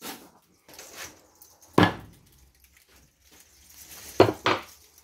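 Cleaver chopping through a skinned rabbit carcass on a wooden chopping board. There are three sharp knocks, one about two seconds in and two in quick succession near the end, with softer handling of the meat between them.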